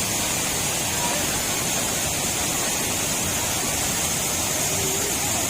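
Waterfall: the steady rushing noise of falling water, even and unbroken throughout.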